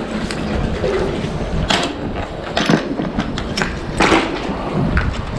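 Irregular scraping, knocking and clicking of handling noise, several sharp strokes over a rustling background, as the freshly found metal pins are dealt with at the fishing magnet.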